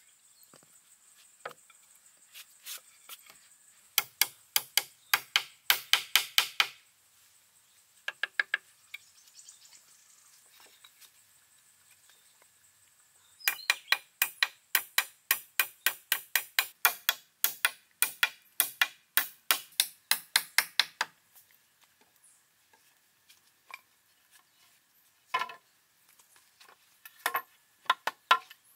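Runs of sharp, quick strikes, as from a hand tool hitting wood, at about four a second. There is a short run about four seconds in and a longer run of about seven seconds starting about thirteen seconds in, with scattered single knocks between.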